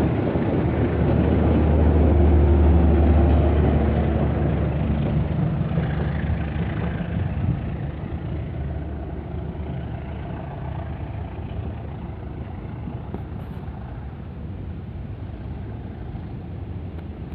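Diesel locomotive of a departing passenger train running with a low, steady drone, loudest a couple of seconds in, then fading steadily as the train pulls away.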